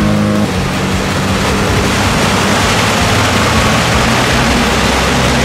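Off-road 4x4 driving, its engine a steady low drone under a loud, even rushing noise from the tyres on wet ground.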